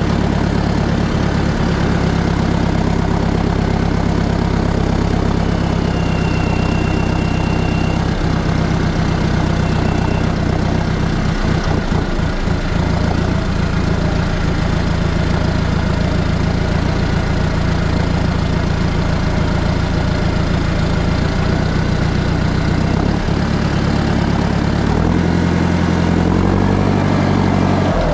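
Tractor diesel engine running steadily at low revs, rising in pitch for a few seconds near the end as the revs pick up.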